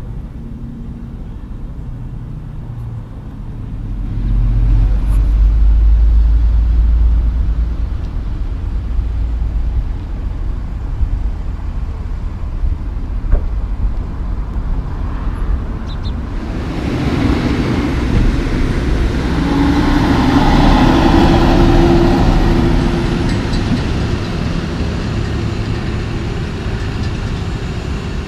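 Road vehicle noise from heavy trucks and traffic. A deep low rumble swells about four seconds in, then louder vehicle noise rises from about seventeen seconds in and slowly fades.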